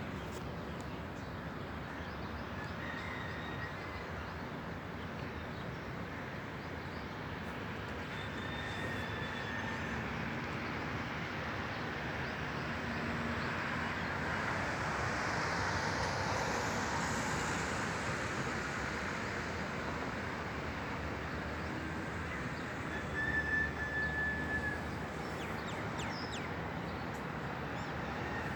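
A few brief, high bird chirps, heard about three times, over a steady rushing background noise that swells and fades in the middle.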